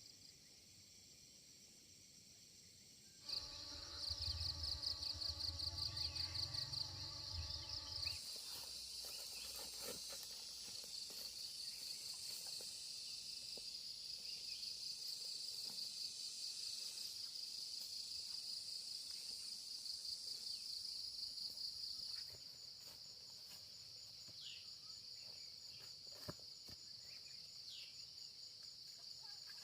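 Insects chirring at a high pitch, in fast pulses at first and then as a continuous drone that drops in level about two-thirds of the way through. A low hum with a few steady tones sounds along with the first few seconds of the chirring.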